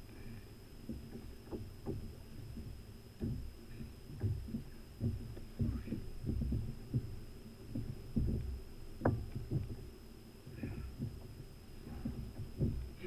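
Small waves slapping and knocking against a fishing kayak's hull: irregular low thumps, one or two a second.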